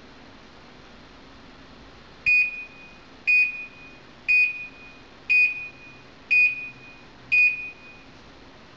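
Hyundai DW 6012BG dishwasher's electronic beeper sounding six short high beeps, one a second, each fading quickly.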